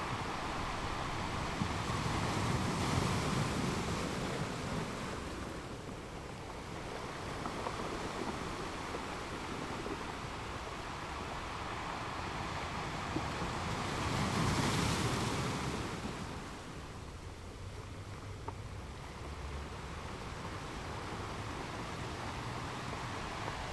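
Sea waves breaking on a beach, a steady wash of surf that swells twice, with the louder crash about two-thirds of the way through.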